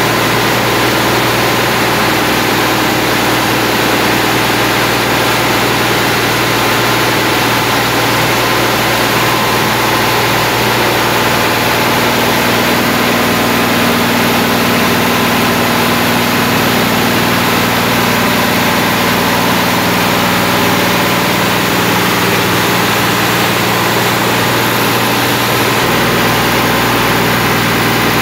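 New engine running steadily under about 80% load on a dynamometer during its run-in, a loud, even drone with no change in speed.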